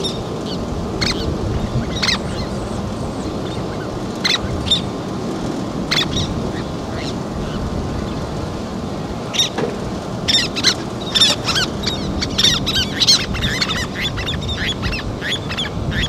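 Least terns calling: short, sharp high calls every second or two, then a rapid run of calls from about ten seconds in, over a steady low rushing background.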